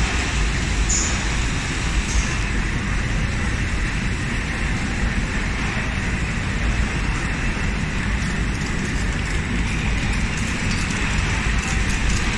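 Steady mechanical din of a high-speed flow-wrap (pillow pack) packaging line running: conveyor belts and wrapping machines working continuously.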